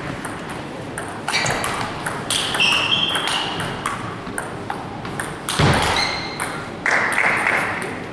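Table tennis rally: a celluloid ball struck back and forth by paddles and bouncing on the table, a string of sharp pings and clicks, with a heavier thump about five and a half seconds in.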